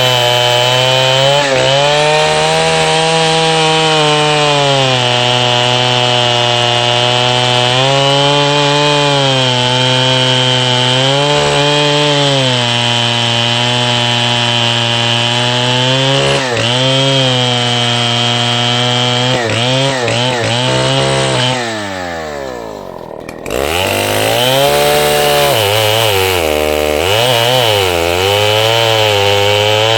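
FARMMAC F070 105cc two-stroke chainsaw running at high revs, its pitch sagging and recovering again and again as it is loaded in a cut. About two-thirds of the way through it drops almost to idle, then revs back up.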